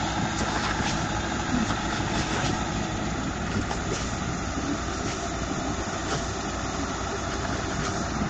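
Massey Ferguson crawler-track tractor's engine running steadily as it works through flooded paddy mud.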